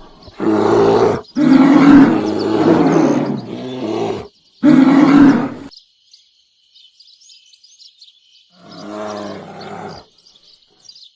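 Bear growling: four loud, long calls in the first six seconds, then a fainter growl about nine seconds in. Small birds chirp faintly in the background once the growls stop.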